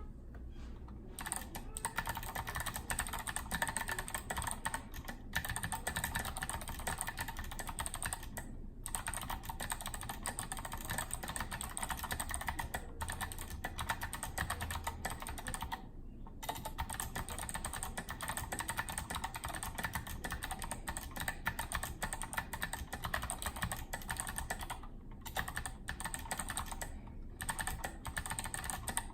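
Fast continuous typing on a Mercury Rocketeer mechanical keyboard with clicky Kailh Box White switches, with a few short pauses.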